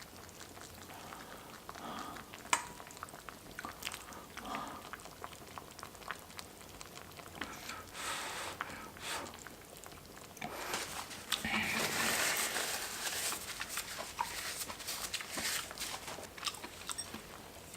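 Eating sounds from a person having pork-bone soup: chewing and slurping, with scattered sharp clicks. A louder run of slurping runs from about 11 to 16 seconds in.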